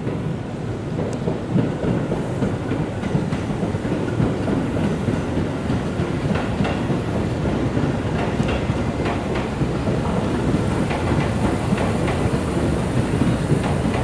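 Tobu Urban Park Line electric commuter train running on the ground-level tracks, a steady rumble with wheels clacking over the rail joints, the clacks coming more often after about six seconds.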